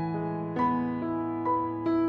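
Background music: soft piano, single notes struck a few times a second over held low notes.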